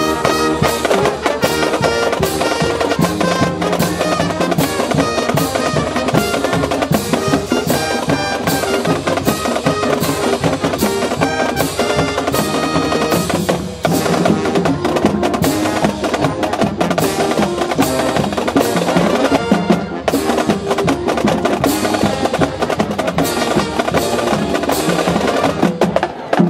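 Marching band playing: snare drums beat a fast, steady rhythm under wind instruments carrying the tune.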